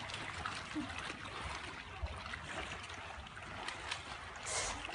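Shallow water sloshing and splashing as children wade through it, with a louder splash near the end.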